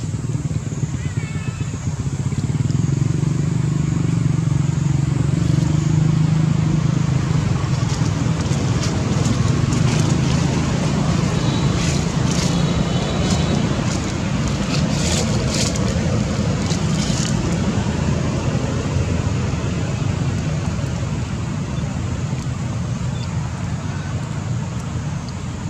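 A steady low rumble of a running engine, with a run of faint crackles through the middle.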